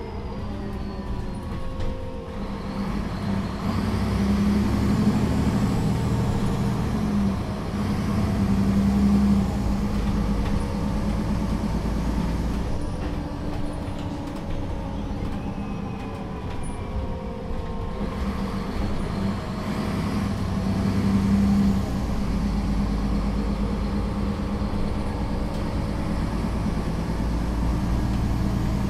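Solaris Urbino III 12 city bus heard from inside the passenger cabin while driving, its engine and transmission running continuously. The pitch rises and falls as the bus pulls away, speeds up and eases off, swelling a few seconds in and again about twenty seconds in.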